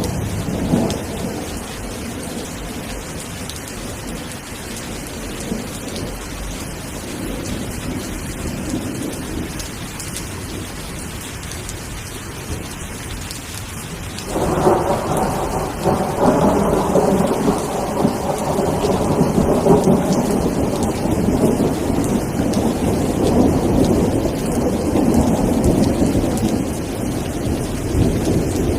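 Steady rain falling, with a rumble of thunder fading out at the start. About halfway through, a louder roll of thunder begins suddenly and rumbles on.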